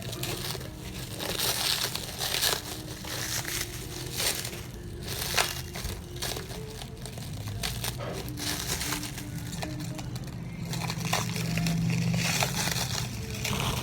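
Plastic packaging crinkling and rustling in irregular bursts with scattered clicks as it is handled and unwrapped, over a steady low hum.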